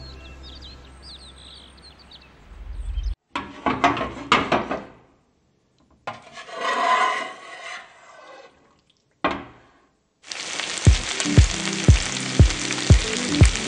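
Soft music fades and cuts off, followed by a few sharp hits and a swelling whoosh. From about ten seconds in, eggplant cubes sizzle as they fry in oil in a pan, under music with a steady beat of about two thumps a second.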